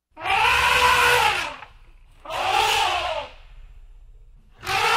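An animal calling three times, each call about a second long, rising and then falling in pitch, with short pauses between.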